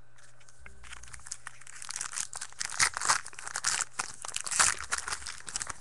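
Foil trading-card pack wrapper being torn open and crinkled by hand: a dense run of sharp crackles starting about a second in, loudest in the second half.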